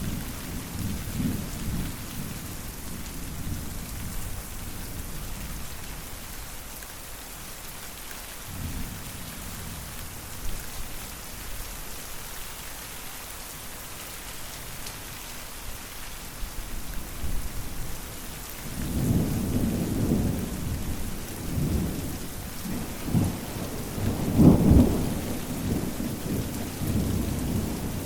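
Constant rain with rolling thunder: a rumble dying away over the first few seconds, a brief one about a third of the way in, then a longer, louder rumble building about two-thirds of the way in and peaking near the end.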